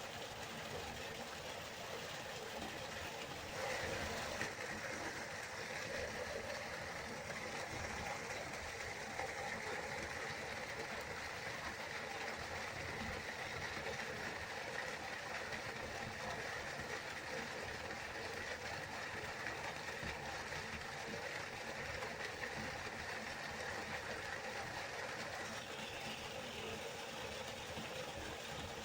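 River water flowing in a steady rush, with a higher hiss that comes in about four seconds in and fades near the end.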